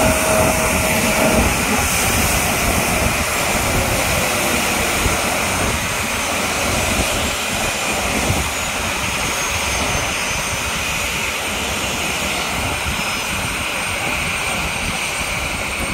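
Embraer 175 regional jet's twin GE CF34 turbofan engines running at taxi power as the jet rolls away, a steady jet engine noise that slowly fades. A steady tone in the first second and a half cuts off.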